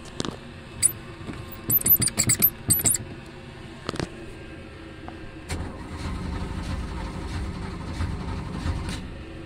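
Keys jangle on the ignition key and a click sounds as it is turned. Then, about five and a half seconds in, the starter cranks the boat's Volvo Penta engine for about three and a half seconds and stops without the engine catching.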